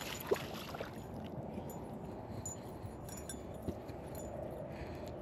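Faint steady background noise with a few light clicks, one just after the start and one past the middle.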